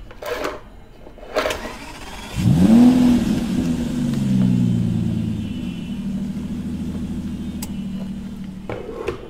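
A couple of clicks, then about two and a half seconds in an engine starts with a quick rising rev and settles into a steady idle that slowly drops in pitch.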